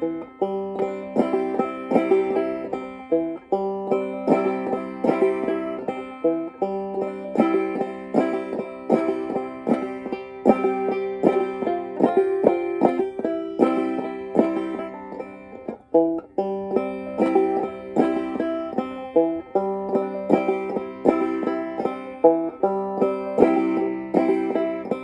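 Five-string banjo played clawhammer style, a steady run of quick plucked notes and strums in a beginner's practice of a tune in a new key, with a brief break in the playing about two-thirds of the way through.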